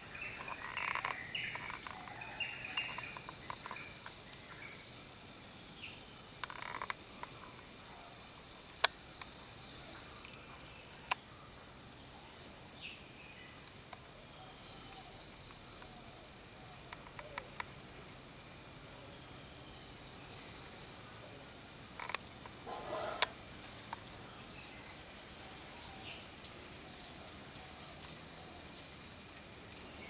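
Oriental magpie-robin calling: a short rising whistled note, repeated about every two to three seconds. A steady high-pitched insect drone runs underneath.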